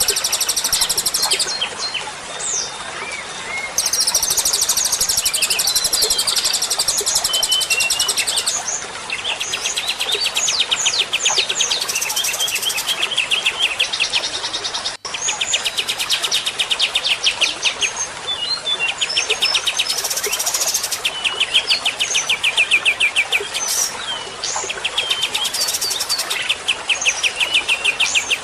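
Songbirds singing continuously: rapid high trills alternate with long series of fast repeated chirping notes. There is a brief drop-out about halfway through.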